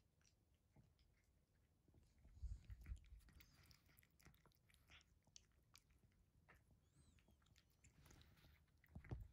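Faint mouth clicks and smacking of a cat eating from a bowl, with soft low knocks about two seconds in and again near the end.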